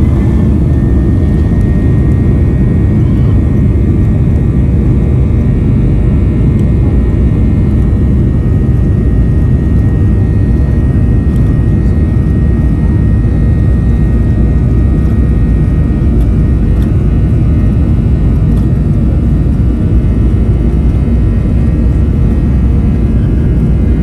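Airliner jet-engine and airflow noise heard from inside the cabin: a loud, steady rumble that holds even throughout. A faint high whine runs over it and stops about two-thirds of the way through.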